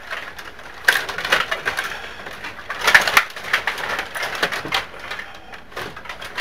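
Rod table hockey game in play: a running clatter of rods sliding and twisting in the table and plastic players clacking against the puck and boards, with sharper knocks about a second in and again about three seconds in.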